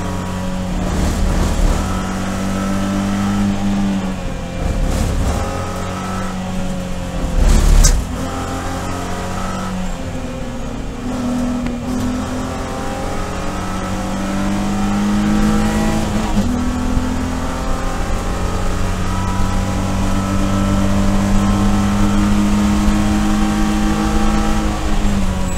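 Cabin sound of a BMW E46 330i-based race car at racing speed. Its 3.0-litre inline-six runs hard under throttle, the pitch dropping at lifts and gear changes and climbing steadily through the second half. There is a loud thump just before eight seconds in.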